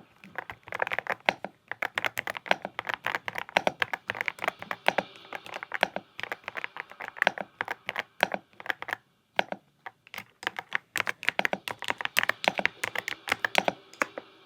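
Typing on a Yunzii Cake mechanical keyboard: quick runs of key clacks with short pauses, the clearest pause about nine and a half seconds in.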